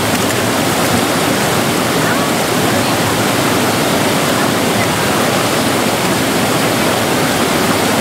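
Chamang Waterfall's water falling and rushing, a loud, steady wash of noise.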